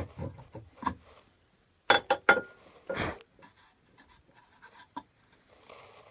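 Handling noises at the stopped lathe: a few sharp clicks and knocks, three in quick succession about two seconds in, then a brief scrape and some light ticks.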